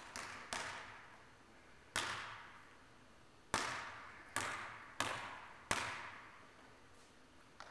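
A basketball hitting the gym floor now and then: about eight sharp thuds at uneven intervals, each echoing on for a second or more in the large hall.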